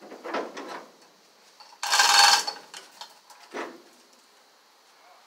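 Chain hoist chain rattling and clinking in short spells while it holds a car body, with one louder metallic clatter about two seconds in.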